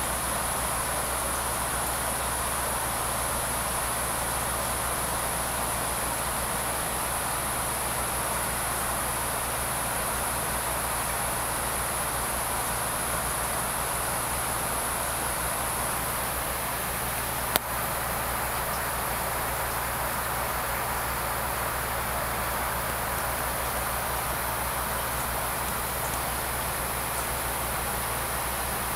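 Steady hum and hiss of aquarium circulation equipment running, with a low mains-type hum under an even high hiss. A single sharp click about two-thirds of the way through.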